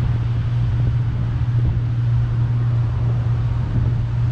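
A steady low engine drone over a low rumble, holding level with no breaks.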